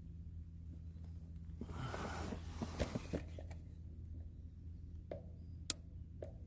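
Wind gusting against a tent in a storm: a steady low rumble, a rushing swell of fabric noise about two seconds in, and a few sharp taps, one near the end louder than the rest.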